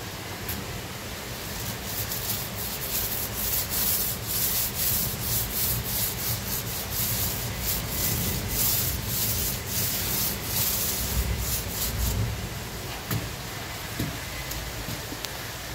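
Paint roller rolled up and down a wall, laying on a second coat of emulsion: a run of repeated rubbing strokes that stops about twelve seconds in, followed by a couple of light knocks.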